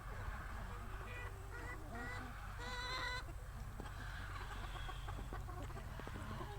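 Chickens clucking, with short calls and one louder, drawn-out call about three seconds in.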